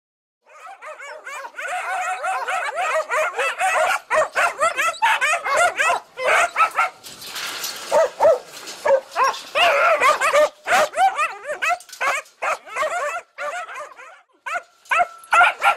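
A pack of West Siberian Laika puppies yelping and barking together behind a wire kennel fence, many high yips and barks overlapping in a continuous chorus with a few brief breaks.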